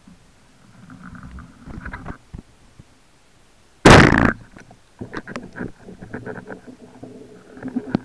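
Underwater: a single loud, sudden thump with a rush of noise lasting about half a second, a little before the middle, amid faint clicks and crackles.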